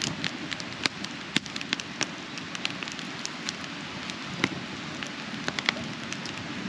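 Campfire crackling, with irregular sharp pops over a steady hiss as magazine pages burn in it.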